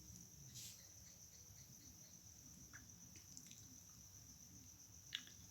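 Near silence with faint, steady high-pitched cricket chirring throughout. A few faint clicks, the sharpest about five seconds in.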